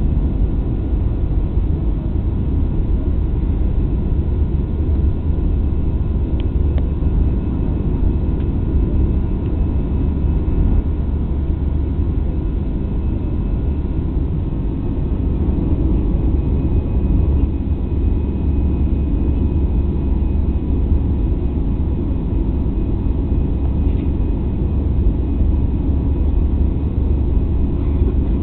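Airbus A320 cabin noise in the climb after takeoff: the steady low roar of the jet engines and rushing air, heard from a seat over the wing, with a faint steady whine above it.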